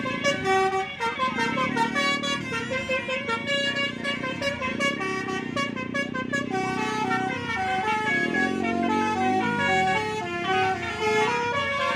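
Basuri bus horn, a multi-tone horn that plays tunes, sounding a melody in a quick run of stepped notes, with a few notes that glide down near the end.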